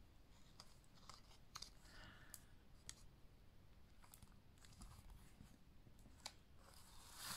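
Near silence with faint, scattered clicks and light rustles of paper and cardstock being handled, as a glued paper pocket is pressed down onto a card panel.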